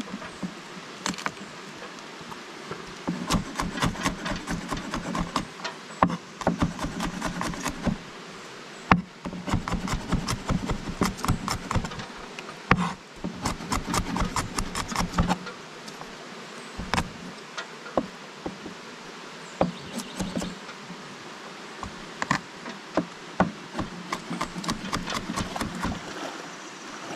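Garlic cloves being crushed and chopped by hand: repeated sharp knocks in quick runs, with short pauses between them.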